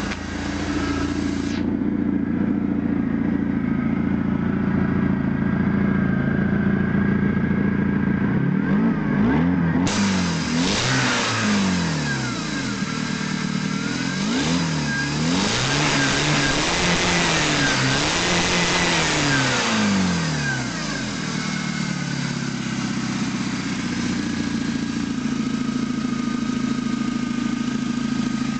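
ZMZ-409 inline-four petrol engine in a UAZ Simbir, idling steadily. About eight seconds in it is revved up and let fall back several times, then it settles to idle about 21 seconds in. It runs evenly without a knock after both timing chains, the lower one broken, were replaced.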